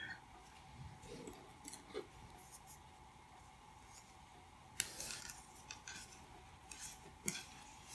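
Faint handling of a crocheted yarn piece with a few small clicks, the sharpest about five and seven seconds in: plastic locking stitch markers being clipped onto the stitches.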